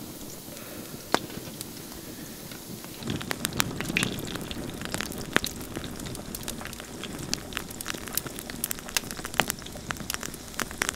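Campfire crackling, with sharp irregular pops over a low hiss; the crackling grows busier and louder about three seconds in.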